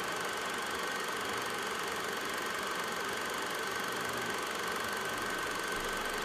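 Steady hiss with a faint, thin high tone held throughout: the background noise of the recording, with no speech or music.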